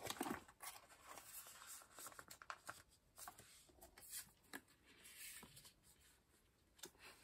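Faint, irregular rustling and light clicks of photocards being handled and slid into a clear plastic binder sleeve.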